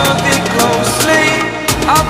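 Background music: a song with a steady drum beat and a sung melody.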